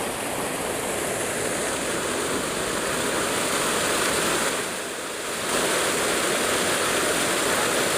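Steady rush of flowing river water, dipping briefly about five seconds in.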